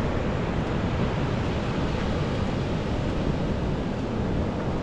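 Steady wash of ocean surf and wind, an even noise with no distinct events.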